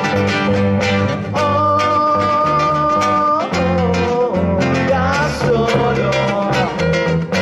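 Background music with a steady beat; a long held note comes in about a second and a half in and lasts about two seconds, followed by a wavering melody line.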